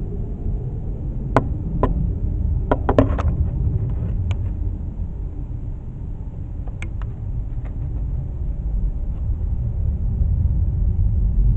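Steady low rumble with a handful of sharp clicks and taps scattered over it, the quickest cluster about three seconds in.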